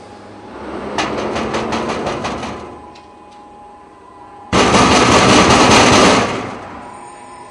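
A rapid rattling series of knocks for about a second and a half, then a few seconds later a sudden, much louder burst of harsh clattering noise that cuts in abruptly and lasts under two seconds before fading.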